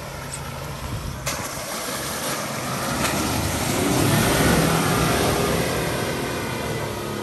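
Land Rover Discovery 4 driving past through mud on a dirt track: its engine and tyres grow louder as it approaches, peak about halfway through, then fade as it moves away. A single sharp click comes about a second in.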